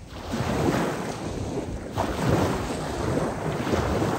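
Small sea waves breaking and washing up a coarse sand beach, swelling about half a second in and again about two seconds in, with wind on the microphone.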